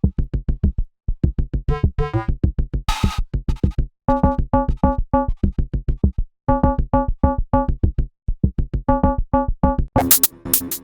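Elastic Drums drum-synthesizer app playing a preset pattern: fast, repeated pitched synth drum hits, about six a second, broken by short gaps. There is a burst of noise about three seconds in, and near the end the pattern switches to brighter, hissy hits.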